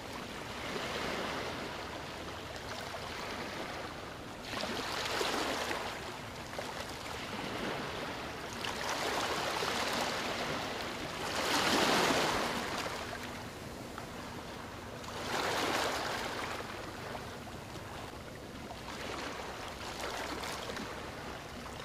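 A rushing, surf-like noise that swells and fades every few seconds, loudest about twelve seconds in.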